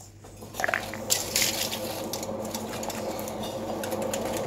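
Aluminium foil and paper towel being unwrapped and handled, with irregular crinkling and rustling over a steady background hum.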